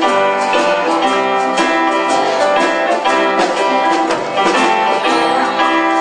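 Instrumental gospel music led by guitar, with a steady beat of about two strokes a second.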